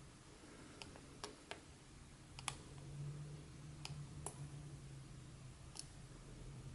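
Light clicks and taps of smartphones being handled and knocked against each other, about eight small sharp clicks scattered over several seconds, the loudest about two and a half seconds in. A faint low hum comes in from about then.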